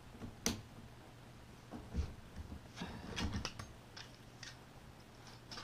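Channel-lock pliers working a spring hose clamp off the washing machine's water pump hose: scattered light metal clicks and knocks, with a sharper click at the very end.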